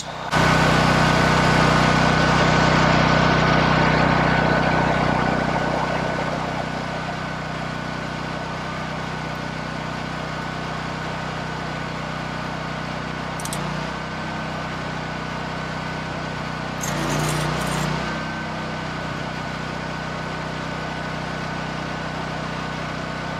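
Engine-driven welder running steadily while the drip-line felt bracket is welded onto the steel head frame of a Wood-Mizer LT15 Wide sawmill. A loud arc hiss starts suddenly at the beginning and tapers off over about six seconds, and two short welding bursts follow, a brief one about halfway through and a longer one a few seconds later.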